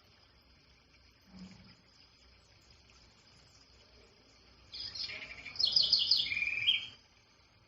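A songbird sings one short phrase of rapid, high, pitched notes about five seconds in, ending on a few lower notes, over a faint steady high hiss.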